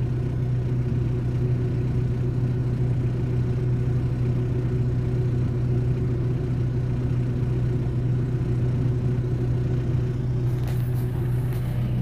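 Kubota diesel tractor engine running steadily, heard from inside the cab.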